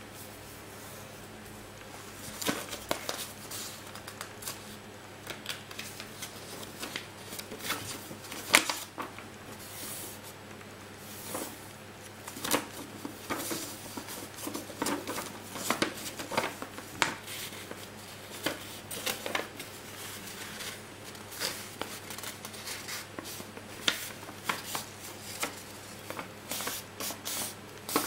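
A sheet of white paper being folded, creased and handled by hand: irregular rustling and crinkling with sharp snaps as folds are pressed, the loudest about eight and a half seconds in.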